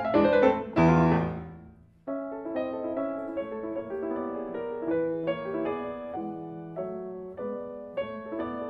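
Grand piano played solo: a loud chord about a second in rings and dies away into a brief pause, then a softer passage of notes begins and carries on.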